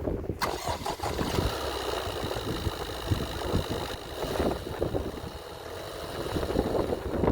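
Volkswagen Golf VII 1.6 TDI diesel engine starting about half a second in and then idling, with a steady high whine over the running.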